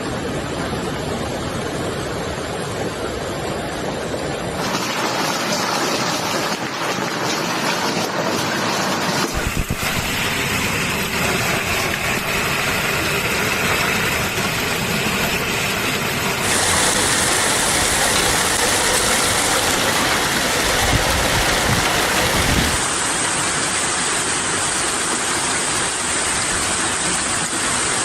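Thunderstorm downpour of heavy rain and hail: a dense, steady hiss. It changes abruptly every few seconds as different recordings are cut together.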